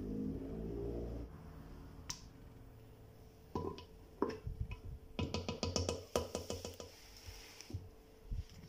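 A brief stretch of music that cuts off about a second in, then a spoon clicking and tapping against a plastic measuring cup and the glass blender jug as flour and corn starch are knocked in, with a quick run of taps a little past the middle.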